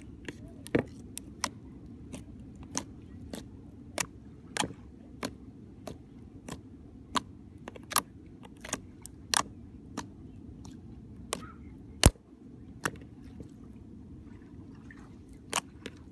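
Glitter slime being kneaded and poked in a plastic bowl, giving sharp clicks and pops at irregular intervals, roughly one a second, with the loudest pop about twelve seconds in. A steady low rumble runs underneath.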